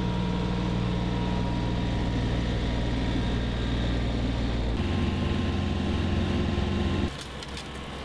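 Compact cab tractor's diesel engine running steadily while working a flail mulcher, heard from inside the cab. The sound changes abruptly about five seconds in and drops quieter about seven seconds in.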